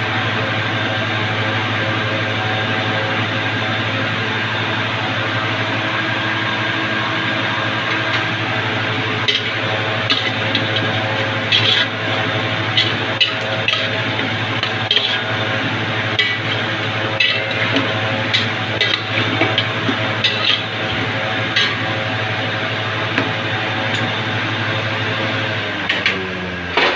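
A metal ladle stirring goat meat in an aluminium cooking pot, scraping and clinking against the pot from about a third of the way in, over a steady hiss and hum.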